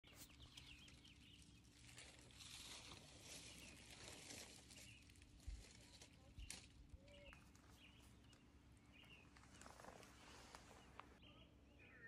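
Faint woodland ambience: soft rustling in two stretches, a few light knocks and a few faint bird chirps.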